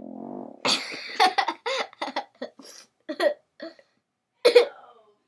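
A child making a rapid string of short, loud, silly vocal noises, about a dozen choppy bursts, with a sharper, louder one near the end.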